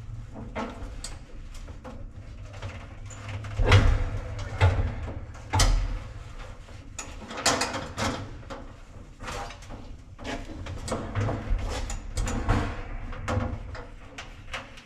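Irregular knocks, clunks and scraping as hands work inside a GE Spacemaker dryer's cabinet, fitting the drive belt over the motor, over a low steady hum. The loudest knocks come about four and five and a half seconds in.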